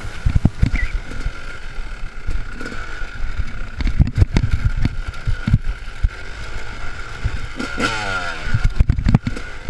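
A Yamaha 250 two-stroke enduro motorcycle's engine running on a rough off-road trail, heard on board, with frequent knocks and thumps. About eight seconds in, the engine note falls sharply.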